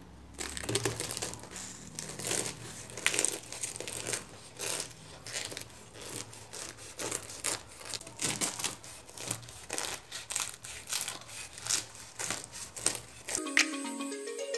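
A knife cutting through the crisp, flaky layers of a baked hand-rolled spiral börek, giving a long run of irregular crackling crunches. Music begins near the end.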